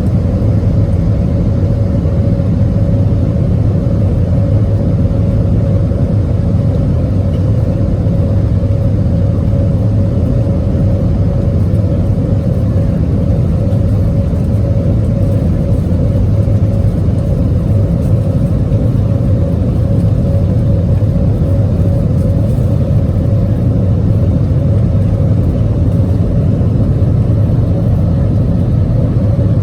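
Steady low rumble of a running vehicle, even in level throughout, with a faint steady hum above it.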